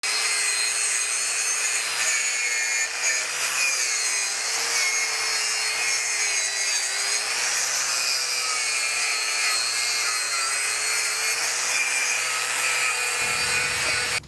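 Wire brush scrubbing the scale off a forged steel roasting fork: a continuous, even scraping with a low hum that wavers slightly in pitch.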